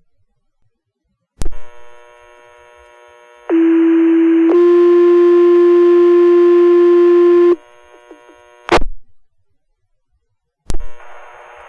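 Fire dispatch radio channel keying up with a click, then two-tone sequential paging tones: a lower tone for about a second followed at once by a slightly higher tone held for about three seconds, the signal that sets off the volunteer firefighters' pagers. The transmission closes with a short squelch burst, and the channel keys up again near the end.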